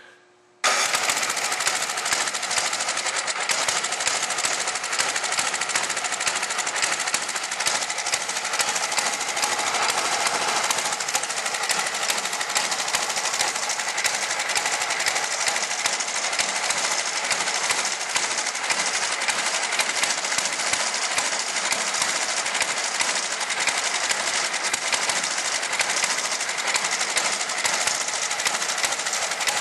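Tecumseh engine of a Toro snowblower going, a rapid even mechanical clatter that starts suddenly about half a second in and holds steady.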